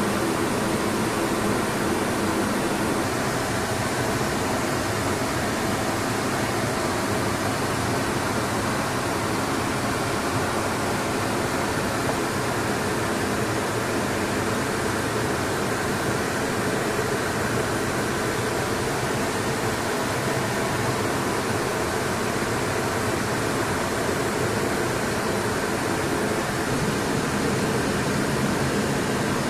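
Steady in-flight cockpit noise of an E-3 Sentry: an even rush of airflow and jet engines with a faint low hum beneath.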